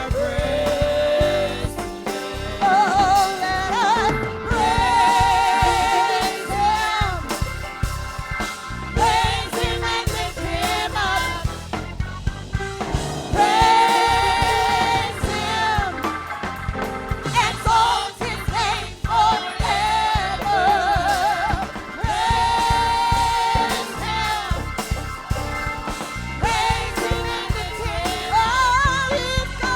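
Gospel praise music: singing with long held notes and vibrato over a band with a steady beat.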